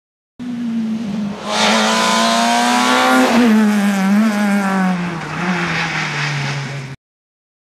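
Rally car at full throttle approaching and passing close by. The engine note climbs as it comes in, drops sharply as it goes past about three seconds in, then falls away through gear changes as it leaves. The sound cuts in and out abruptly.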